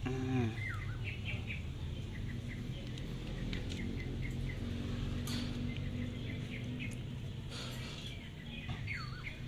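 Small birds chirping, with short repeated chirps and a few quick falling whistles, over a steady low hum. A brief falling vocal sound comes right at the start.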